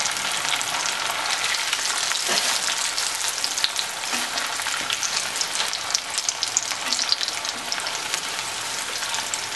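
Taro root (arbi) slices deep-frying in very hot oil, a steady dense crackling sizzle, stirred now and then with a slotted metal spatula.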